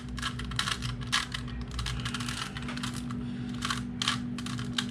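Rubik's Cube layers being twisted by hand: rapid clicking and clacking of the plastic pieces, which pauses briefly midway.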